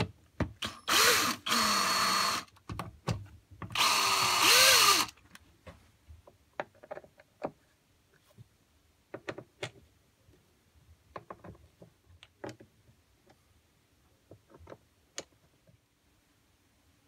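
Cordless drill driving screws into the plastic back panel of a portable PA speaker in two short runs, the motor winding up and slowing down each time. After that come scattered light clicks and taps as the screws are finished with a hand screwdriver.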